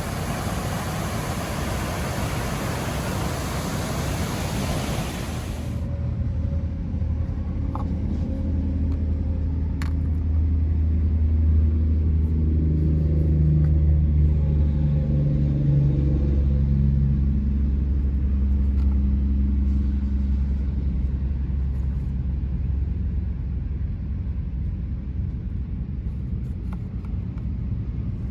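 Vehicle engine and road rumble as heard inside a moving car: a steady low hum that grows louder in the middle and eases off toward the end. A broad hiss fills the first few seconds before it cuts off.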